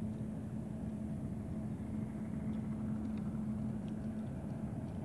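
An engine running steadily, a low rumble with a steady hum that fades about four seconds in.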